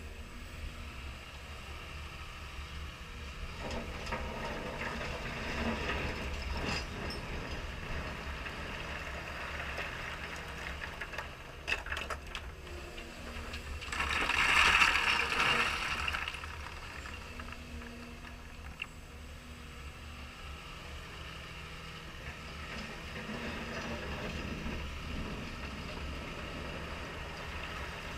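Caterpillar 320E excavator working: its diesel engine drones steadily while the hydraulics whine up and down as the boom and swing move. About halfway through, a load of stone pours out of the bucket onto the stockpile in a rattling rush that lasts a couple of seconds and is the loudest sound.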